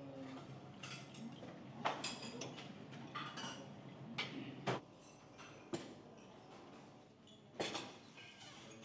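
A series of irregular, sharp knocks and clinks of hard objects being handled, with a faint low hum under the first half.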